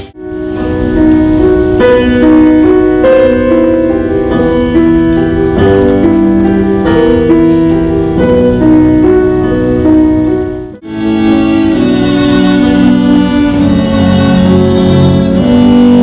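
Instrumental concert music: a passage with piano and bowed strings breaks off about eleven seconds in and gives way to a different piece played by a small ensemble.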